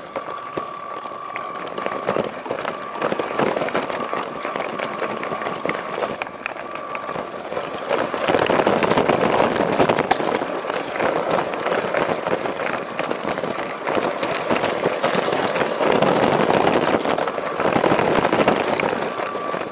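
Lego passenger train running along plastic Lego track: a dense crackling clatter of its wheels and motor, with a thin steady high whine that fades out about seven seconds in. The clatter grows louder about eight seconds in.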